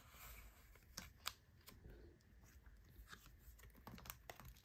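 Faint crinkling of clear plastic binder sleeve pockets and soft scattered ticks as photocards are slid into them and pressed flat.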